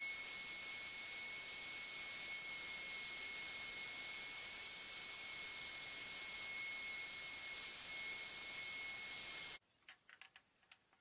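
Table-mounted electric router running at speed: a steady high whine over a loud hiss. It cuts off abruptly near the end, and a few faint clicks of wooden pieces being handled follow.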